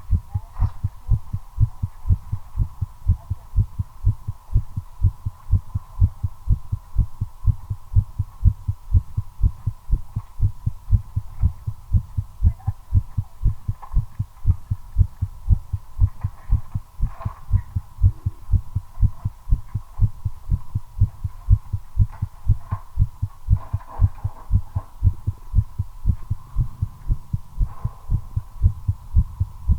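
Human heartbeat picked up close: fast, evenly spaced lub-dub beats, quickened by nicotine while smoking a cigarette. A faint steady high hum sits underneath.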